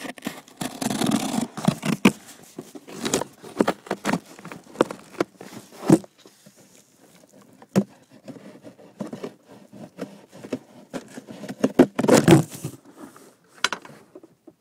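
Cardboard packaging being worked open: scraping, tearing and crinkling, with many sharp clicks and knocks of handling. The loudest tearing bursts come about a second in and again near the end.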